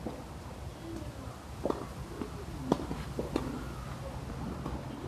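Tennis balls being struck by rackets and bouncing on an outdoor court: several sharp, short pops about a second apart, the loudest near the middle.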